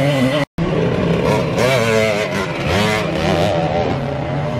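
Small two-stroke Simson moped engines revving up and down as dirt bikes ride a motocross track, several engines overlapping. The sound cuts out for an instant about half a second in.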